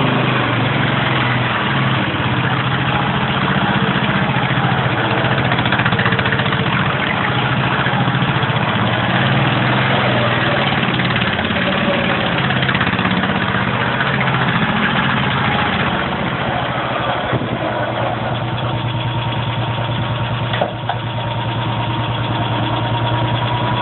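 Ransomes crawler tractor's engine running steadily as the small tracked machine drives and turns in tight circles. The engine note drops a little about two-thirds of the way through, and there is a single sharp knock near the end.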